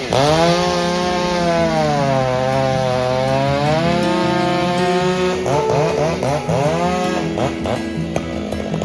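Two-stroke chainsaw cutting into a downed tree: the engine's pitch sags as the chain loads up in the wood and then climbs back. About five and a half seconds in it gives several quick rising revs, then runs on steadily.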